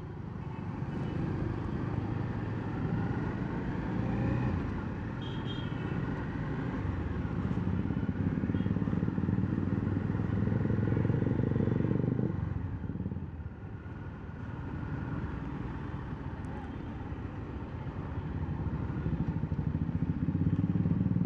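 Bajaj Dominar 400's single-cylinder engine running as the motorcycle rides through city traffic. It eases off for a couple of seconds about halfway through, then picks up again.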